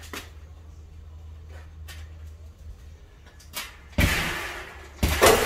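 A steel security screen door being set up and shifted in its doorway on spacers for a test fit: a few faint knocks, then two loud, noisy scrapes of about a second each, about four and five seconds in.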